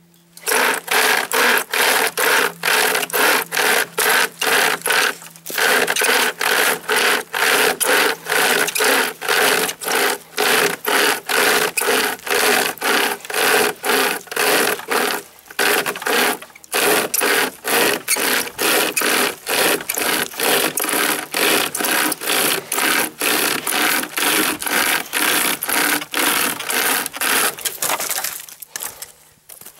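Homemade pocket chainsaw, a bare chainsaw chain pulled back and forth by paracord handles, rasping through a dead log in fast strokes at about three a second. It pauses twice briefly, and the strokes die away near the end as the log is cut through.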